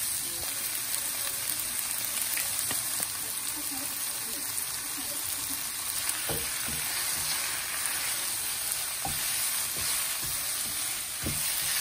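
Tofu noodles, enoki mushrooms and sliced bell peppers sizzling steadily in a hot nonstick wok as they are stir-fried with chopsticks, with a few light knocks as the food is stirred.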